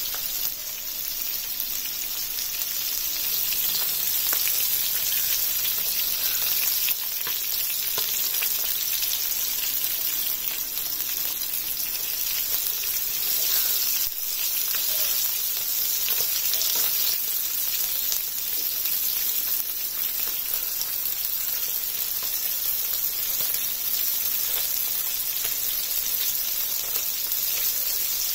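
Masala-coated fish pieces shallow-frying in hot oil on a flat tawa: a steady sizzle with many small crackles and spits.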